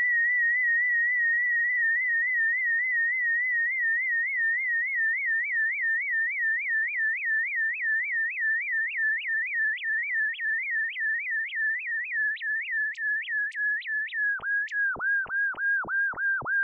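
Synthetic high electronic tone, a sonification of the gravitational-wave signal from two neutron stars spiralling together. It pulses about three times a second, the pulses growing sharper and more clicking as it goes on. About fourteen seconds in, it drops slightly lower in pitch.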